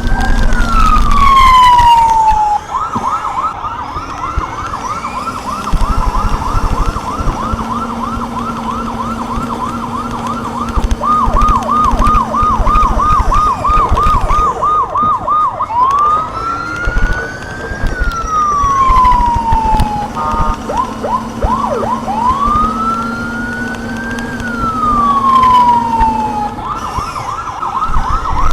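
Electronic vehicle siren cycling through its tones. Slow wails rise and fall over about two seconds, alternating with long stretches of rapid yelping sweeps several times a second, and a short choppy burst a little past the middle.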